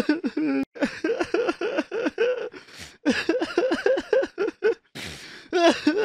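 A person crying in rapid, gulping sobs, about five a second, in two runs broken by sharp drawn-in breaths.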